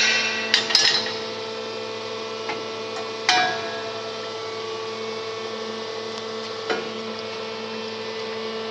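Waterjet pipe-cutting machine running with a steady hum, while the steel square tube knocks and clanks against the machine: two quick knocks just after the start, a louder ringing clang about three seconds in, and a lighter knock near the end.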